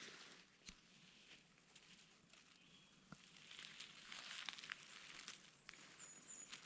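Near silence, with a few faint scattered clicks and a soft hiss that rises a little about three seconds in.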